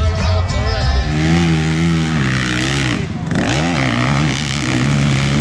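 Music gives way about a second in to a dirt bike engine revving hard on a steep hill climb, its pitch rising and falling with the throttle and briefly dropping near the middle.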